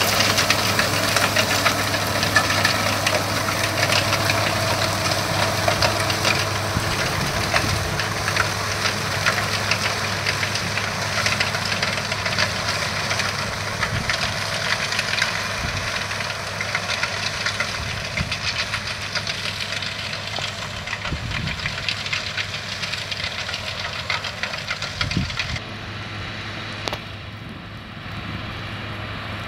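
A tractor engine runs steadily under load, driving a Pronar N161/3 muck spreader's rear beaters, with a dense crackling clatter of manure being flung out. The sound slowly gets quieter, and the high clatter drops away suddenly near the end.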